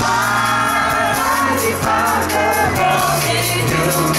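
A woman singing live into a microphone over a band with keyboard and drums, her voice gliding through long sustained phrases above low held notes.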